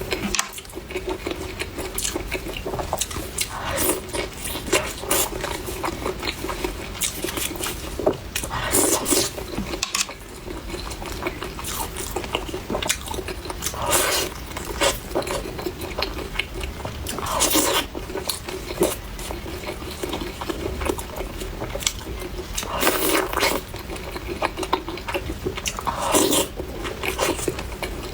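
A person eating spicy chicken close to the microphone: steady wet chewing, with louder bites every few seconds.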